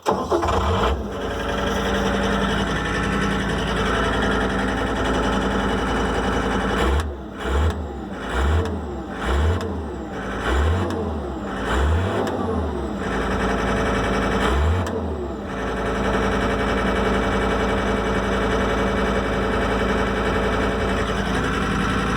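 John Deere wheeled skid steer's diesel engine catching and starting, running, then revved up and down about seven times in quick succession before settling back to a steady idle. The throttle responds freely now that the seized linkage has been freed and the fuel system primed.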